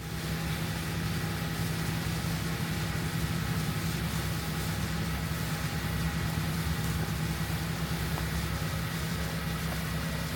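John Deere 8270R tractor's diesel engine running steadily under load with a constant low hum.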